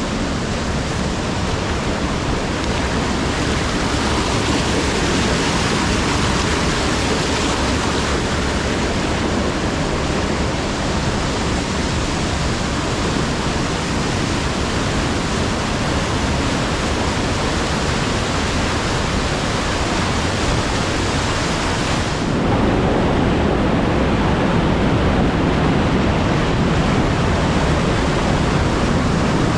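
Fast, swollen stream rushing as whitewater over rocks and the stone foundations of an old water mill, a steady loud rush of water. About three-quarters of the way through the sound turns deeper and fuller.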